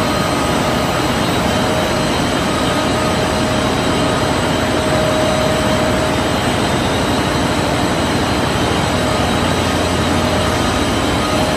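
Open-width fabric washing machine running in a textile mill: a loud, steady mechanical noise with a few constant whining tones through it.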